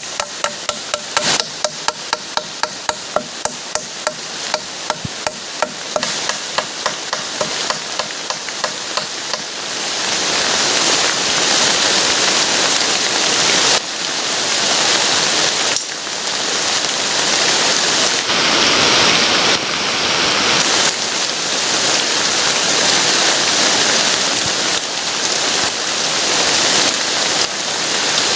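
Rhythmic knocking, about two strokes a second, each with a short ringing tone, in the first third. About ten seconds in it gives way to the steady loud noise of heavy rain, which swells and stays.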